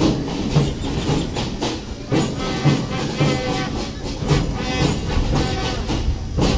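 March music with a steady beat of about two beats a second under a sustained melody, accompanying a march past.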